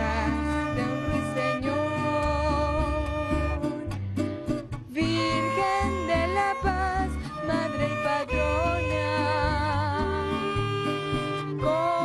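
A woman singing a Venezuelan vals with wide vibrato, accompanied by a small string ensemble of violins, cello, double bass and a plucked string instrument. The music thins out briefly about four seconds in, then resumes.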